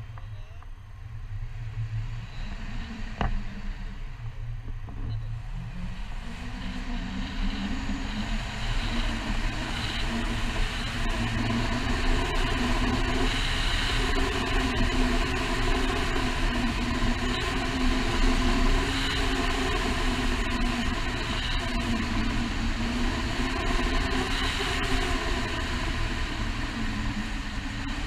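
Wind rushing over an action camera's microphone in tandem paraglider flight. It builds over the first ten seconds as the glider banks into a steep turn and picks up speed, then stays loud. A single sharp click about three seconds in.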